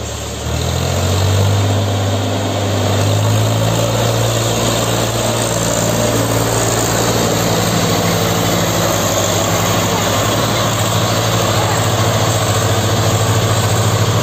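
Diesel tractor engines working hard, an Eicher 5660 towing a Swaraj 744 FE and its heavily loaded trolley. A steady, deep engine note that steps up about half a second in, then holds.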